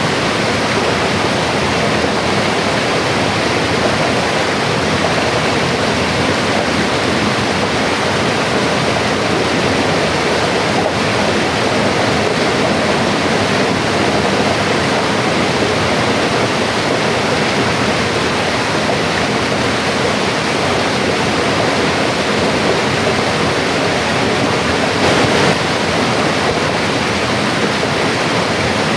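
Mountain river flowing, a steady even rush of water over rocks.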